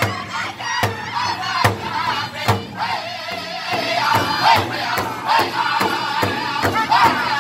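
Powwow drum group: many men singing together in high, northern-style voices over one large shared drum struck in unison with drumsticks. The drumbeat is slow at first, about one stroke a second, and then quickens to a steady beat of about three strokes a second around halfway through.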